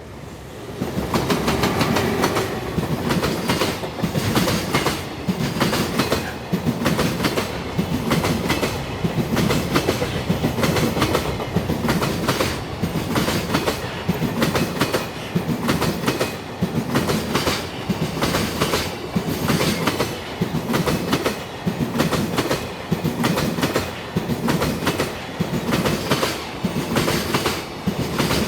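Container freight train behind an EF210 electric locomotive passing over rail joints: the wheelsets strike each joint in regular clickety-clack groups, about one group a second. It comes in loud about a second in.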